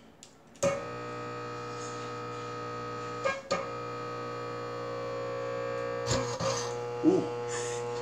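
750-watt metal halide ballast switching on about half a second in and buzzing loudly with a steady mains hum as it overdrives a compact fluorescent bulb. A few sharp crackles break through around three and six seconds in.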